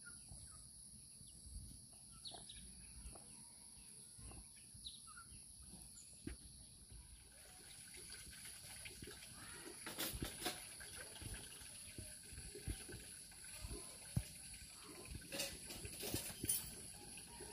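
Faint outdoor ambience: a steady high-pitched hum with a few short bird chirps early on, and scattered ticks and taps that grow busier in the second half.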